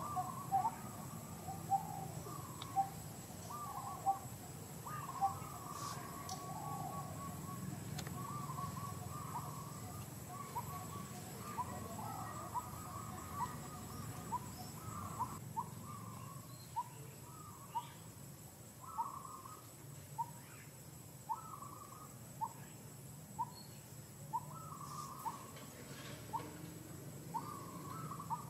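Short, high, rising animal calls repeating about once a second, busier and more overlapping in the first few seconds, over a steady low hum.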